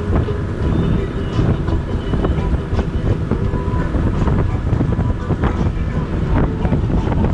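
Wind buffeting the microphone over a steady motor hum, with scattered light knocks.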